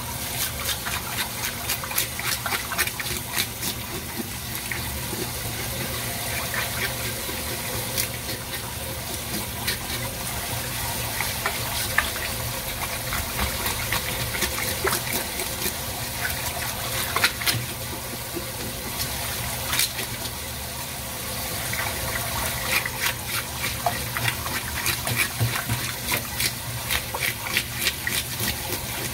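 Tap water running steadily into a sink, with runs of quick scraping and clicking strokes as a fish is worked under the stream.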